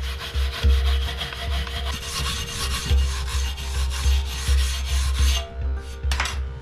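Spring-steel blade being abraded to shape: a dense scraping hiss of metal being ground over an uneven low pulsing, which stops about five and a half seconds in.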